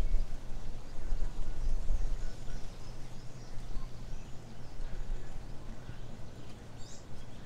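Outdoor riverside ambience: a steady low rumble, with faint scattered bird chirps above it and one sharper chirp near the end.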